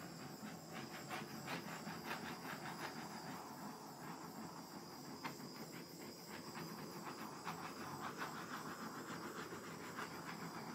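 Small handheld butane torch burning with a steady hiss as its flame is swept over wet acrylic paint, with faint irregular crackling.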